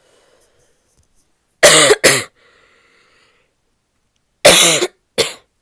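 A woman's barky coughing fit: two loud double coughs, about three seconds apart.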